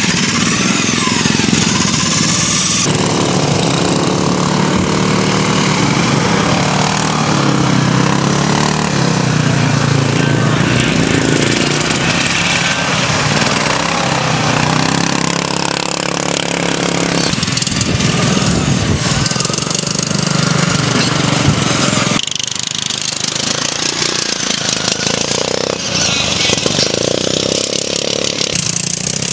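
Racing ride-on lawn mower engines running hard, their pitch rising and falling as the mowers speed up and slow down.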